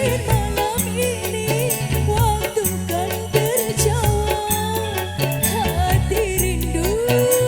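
Music: a sliding, wavering melody line over a repeating bass pattern and regular percussion ticks.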